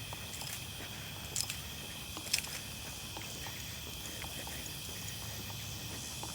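Steady high buzzing of insects, with faint ticking steps and two sharper clicks in the first half.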